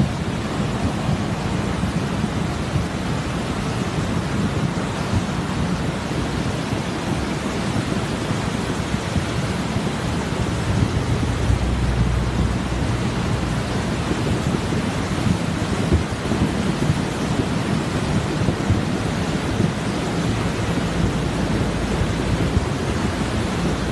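The Chili river in flood, its muddy water rushing in large rapids: a steady noise of turbulent water.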